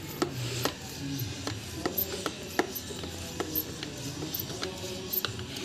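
Plunger pump of a 2-litre Kisan Kraft KK-PS2000 plastic hand pressure sprayer being worked up and down, pressurising the tank. It gives a short click or squeak with each stroke, about two to three a second.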